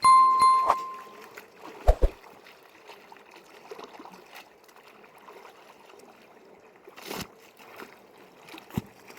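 River water running faintly and steadily. It opens with a clear ringing tone that fades over about a second, and two knocks come about two seconds in.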